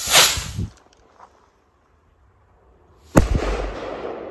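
ABA "Blitz und Donner" (lightning and thunder) firework rocket launching with a short whoosh. About three seconds later a single loud bang as it bursts, with a long fading echo.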